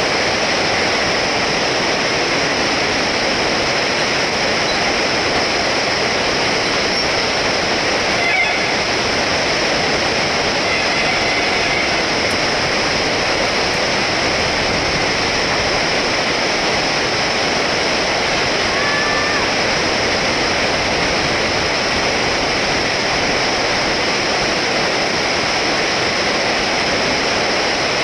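Steady rushing noise of fast-flowing river water, with a few faint short chirps over it.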